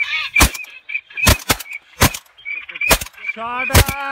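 Shotgun shots fired at a flock of ducks: about six loud shots in four seconds, two of them close together. Short high bird calls run throughout, and a long honking call comes near the end.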